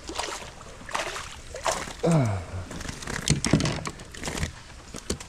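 Water sloshing and splashing with irregular knocks, and a short falling vocal sound about two seconds in.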